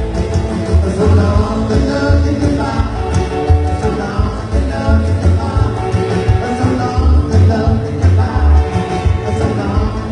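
Band music with a singer over a steady, pulsing bass line.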